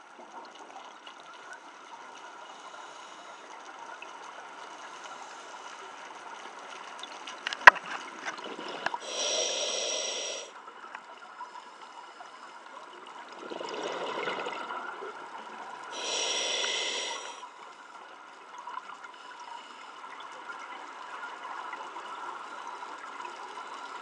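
Scuba diver breathing through a regulator underwater: three bursts of exhaled bubbles rushing out a few seconds apart over a faint steady hiss, with one sharp click a little before the first burst.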